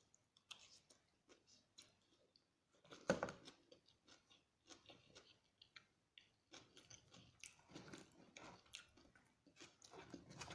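A person chewing and biting crunchy food close to the microphone: soft, irregular crunches, with one louder crunching bite about three seconds in.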